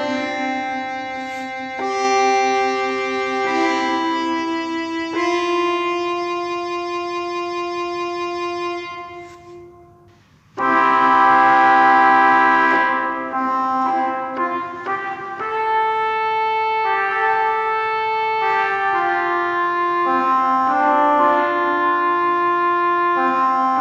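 Keyboard music playing held, organ-like chords with a melody line on top. About ten seconds in it fades away, and half a second later a new passage starts loudly.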